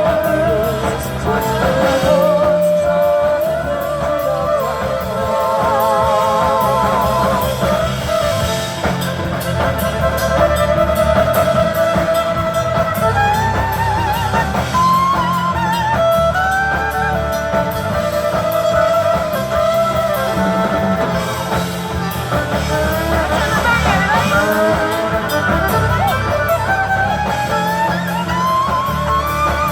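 A live band performing a song: singing with wavering, vibrato-like melody lines over guitar and a steady low bass.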